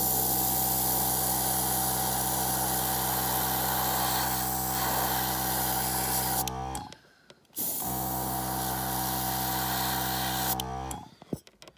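Master Airbrush G22 spraying paint, a steady hiss of air over the even hum of the air compressor that drives it, in two long runs with a short break a little past halfway.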